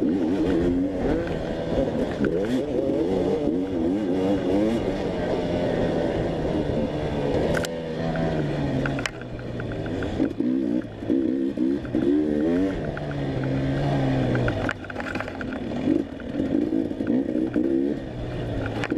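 Dirt bike engine running hard off-road, revving up and down over and over, with a few sharp knocks in between.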